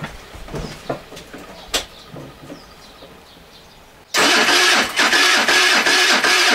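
A few light clicks, then about four seconds in an electric starter motor begins cranking the freshly rebuilt 139QMB 50 cc single-cylinder four-stroke scooter engine on its first start, a loud steady whine with an even pulse of compression strokes; the engine does not fire.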